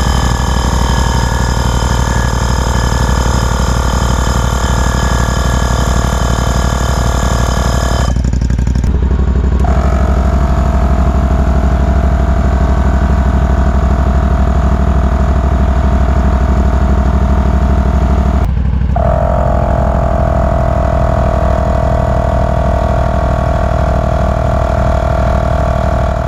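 12-volt portable air compressor running under load as it inflates small mower tyres, a steady whine over the low hum of the zero-turn mower's idling engine that powers it. The whine breaks off twice, about eight and eighteen seconds in, and starts again.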